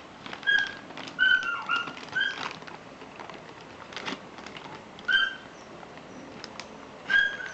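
A small animal chirping: short, high, single-pitched chirps that come one at a time every second or two, with a few scattered clicks and rustles of handling.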